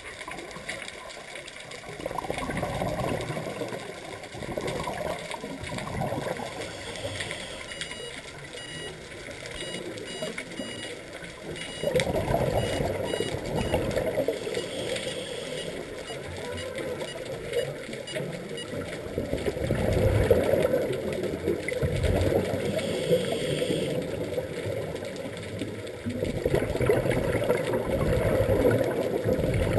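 Scuba diver breathing on a regulator underwater: inhalations hiss and exhalations rumble out as bubbles in repeated swells. About seven seconds in, a dive computer beeps rapidly, about two beeps a second, for some four seconds: its fast-ascent warning as the diver rises to the whale shark's depth.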